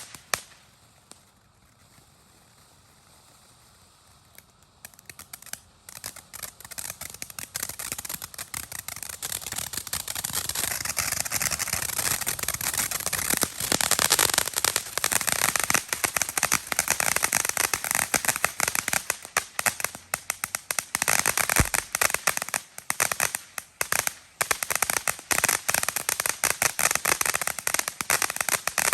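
Black Cat Little Big Show firework fountain crackling: a dense crackle stops about a second in and it goes nearly quiet for a few seconds. From about five seconds in, the crackle starts again and builds into a loud, continuous spray of tiny pops.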